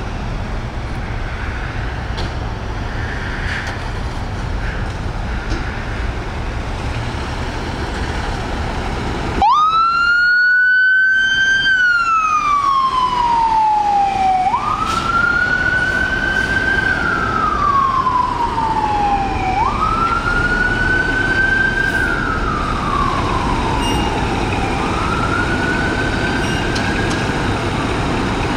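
Street traffic rumbles, then about a third of the way in a fire apparatus's mechanical Q siren winds up fast, holds its pitch and coasts slowly down. It does this four times, about five seconds apart, and the last wind-up is fainter.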